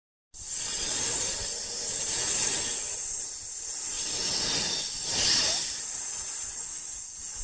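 Loud hissing that starts abruptly just after the beginning and swells and eases a few times.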